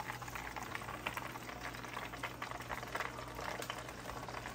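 Hot oil in a small saucepan bubbling and crackling steadily while panko-breaded mahi mahi roe is deep-fried, over a steady low hum.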